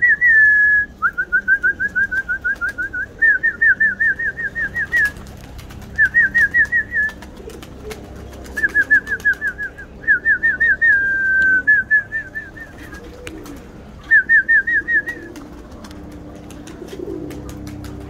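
A songbird singing nearby: bursts of rapid, short, rising whistled notes, about seven a second, with a longer held whistle before some bursts. Pigeons coo faintly beneath.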